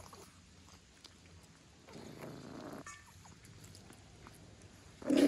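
A dog making a low, rough grumbling sound about two seconds in, then a short, loud vocal sound near the end, likely a bark.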